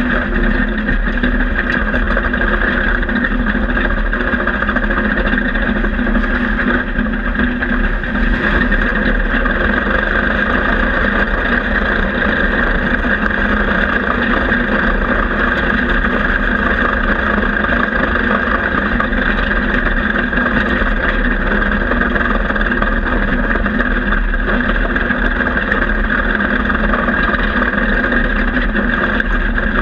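Panzer I tank's engine running steadily, heard loud and droning from inside the hull.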